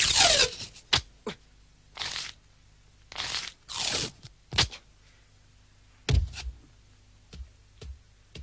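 Animated sound effects: a run of short rasping swishes, the first sweeping down in pitch, with scattered clicks and a low thump about six seconds in.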